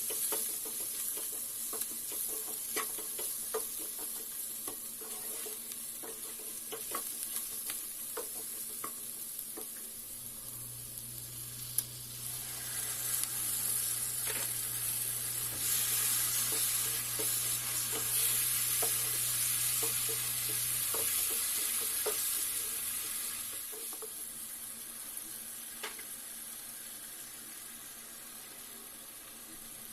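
Food sizzling as it fries in a pan, with a spoon ticking and scraping against the pan as it is stirred. The sizzle swells louder for several seconds midway, under a low steady hum.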